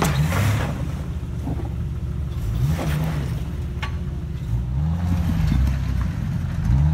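Jeep Wrangler engine revving in short bursts as it crawls over rock ledges, the pitch rising and falling three times.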